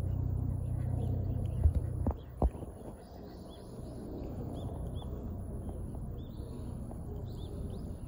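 Steady low outdoor rumble, broken by three sharp knocks about two seconds in, after which the rumble drops. From about three seconds on, faint short high bird chirps repeat every half second or so.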